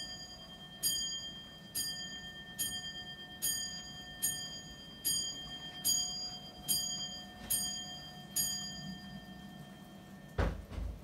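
Antique gilt-metal and porcelain mantel clock striking the hour on its bell: eleven ringing blows, evenly spaced a little under a second apart, each dying away. A low thump comes near the end.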